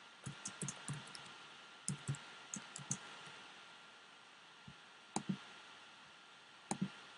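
Computer keyboard keystrokes typing a short line of text: a quick, uneven run of taps in the first three seconds, then a few spaced keypresses.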